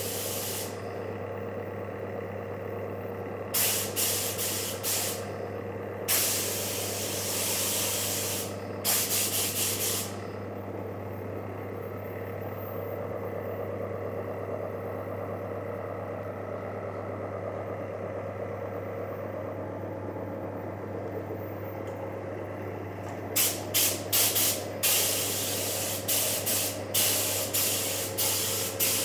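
Air spray gun spraying paint in hissing bursts of one to two seconds. After a long pause it gives many short, quick blasts near the end. A steady low hum runs underneath throughout.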